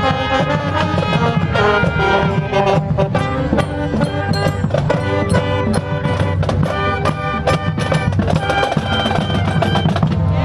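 Music with drums and percussion: pitched instruments playing over a busy drum beat.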